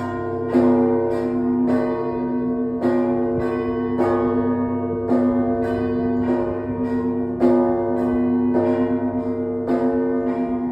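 Russian Orthodox bell ringing from the main bell tower of the Trinity Lavra of St. Sergius: several bells of different pitches struck in a steady rhythm, a main stroke about once a second, lighter strokes between, over the lingering hum of the larger bells.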